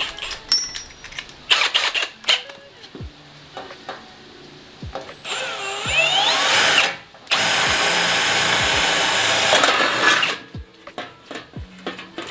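Cordless drill boring into a sheet-metal fender panel: a first burst of about a second and a half with a squealing, wavering pitch, a short pause, then a steady run of about three seconds. Light clicks and knocks of handling come before and after.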